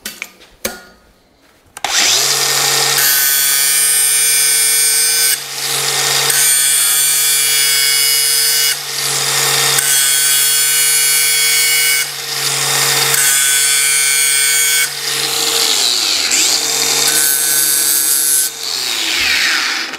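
Angle grinder with a 1/8-inch grinding disc spins up about two seconds in and grinds a flat land onto the beveled knife edge of a steel plate. The disc bites in several passes, with short breaks where the motor runs freely. The motor winds down briefly around sixteen seconds, picks back up, and spins down near the end.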